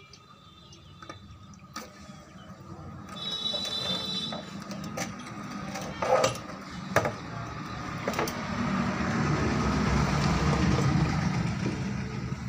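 Metal clicks and knocks as screws and the heatsink board are worked loose from a steel amplifier chassis; two sharper knocks come about six and seven seconds in. A broad rumbling noise builds up in the second half and is the loudest sound.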